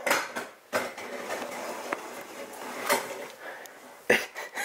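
Kitchen handling noise as shrink-wrapped meat trays are moved on the counter and one is picked up: a few sharp knocks, one about three-quarters of a second in and one near the end, with rustling between.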